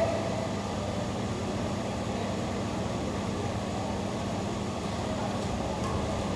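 Steady background hum and hiss, with a couple of faint taps about five and a half seconds in.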